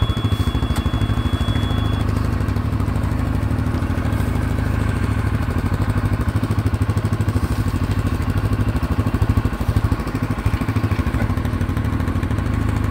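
CFMoto utility ATV engine idling steadily, with a thin high tone for about the first two seconds.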